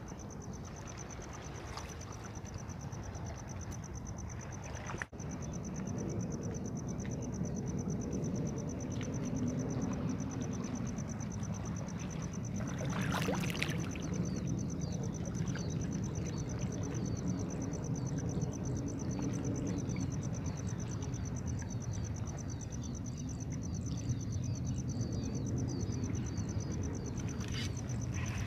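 Wind rumbling on the microphone over choppy water, stronger from about five seconds in, with a steady high-pitched insect buzz throughout.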